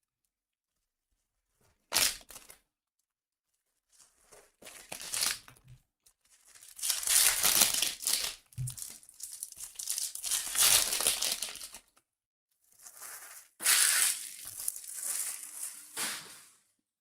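Topps Chrome card pack wrappers being torn open and crumpled by hand. There is a short sharp rip about two seconds in, then several spells of crinkling, the longest about five seconds through the middle.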